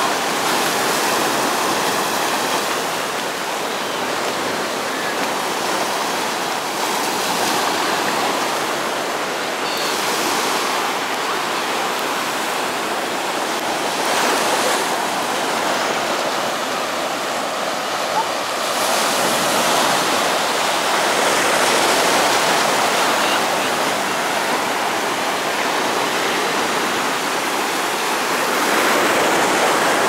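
Sea surf: small waves breaking and washing up the shore, a steady rush of water that swells louder every few seconds.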